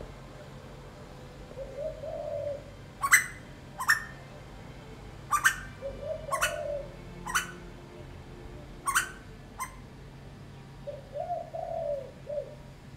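Asian koel calling with about eight loud, sharp rising notes, spaced irregularly. Between them a spotted dove coos softly and lower in pitch, three times.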